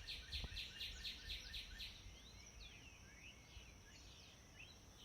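Birdsong: a fast trill of repeated falling notes, about four a second, that stops about two seconds in, followed by scattered chirps and short whistles.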